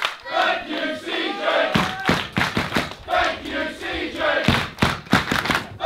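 Wrestling crowd chanting in unison, a short phrase repeated over and over, with loud thumps from about two seconds in.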